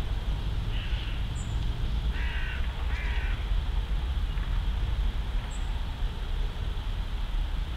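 A bird gives three short calls in the first few seconds, with a couple of faint high peeps, over a steady low rumble.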